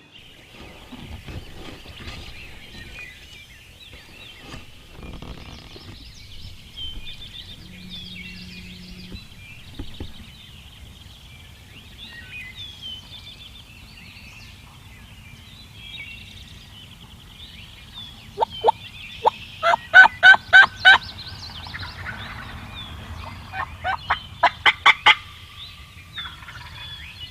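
Turkey calling: two loud runs of quick, sharp notes, about eight at a time, the first a little over halfway in and a second shorter run near the end. Songbirds chirp steadily underneath.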